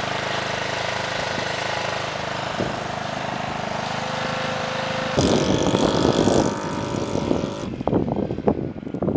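A 150cc go-kart buggy's engine idles steadily, then turns much louder and rougher about five seconds in as the kart pulls away. Near the end, wind buffets the microphone over the fading engine.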